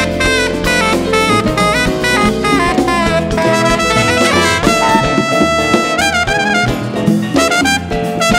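Live Cuban jazz band playing: tenor saxophone and trumpet lines over bass, drums and percussion, with the lead passing from the saxophone to the trumpet. Fast runs, with a few long held notes around the middle.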